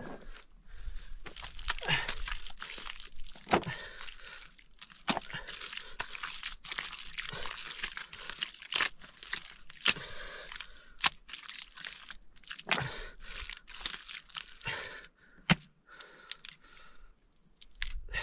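Wet mud being kneaded and pressed by hand on a mud-caked sack spread on the ground: many irregular sharp crackles, squelches and rustles.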